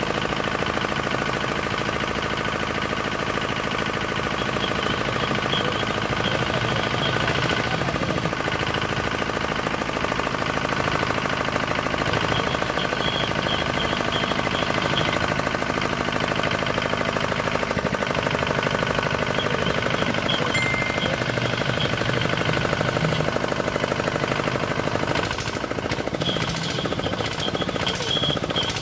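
D10 single-cylinder diesel engine running steadily with a fast, crisp, even firing knock, the sound of an engine that has just been adjusted to start easily and fire cleanly. A few sharp clicks come in near the end.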